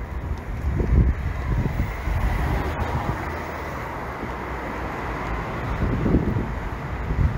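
Outdoor city-street ambience: a steady rumble of traffic, with gusts of wind buffeting the microphone about a second in and again near the end.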